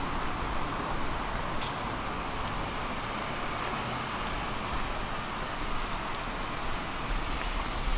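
Steady city street ambience: a constant, even hum of distant traffic, with a couple of faint ticks.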